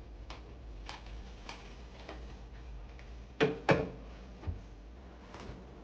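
Light clicks and knocks of things being handled: a few soft clicks about half a second apart, then two louder knocks in quick succession a little past the middle, and a couple of fainter ones after.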